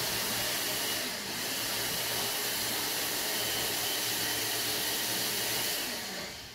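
Electric blender or food processor running steadily, grinding fresh garlic and spices into a seasoning paste, with a whirring motor; it shuts off about six seconds in.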